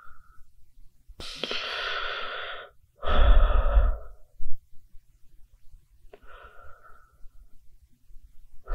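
Human breaths heard close up, one after another: a drawn-out breath about a second in, a louder one with a low rumble right after it, and a softer breath later on, with another beginning at the very end.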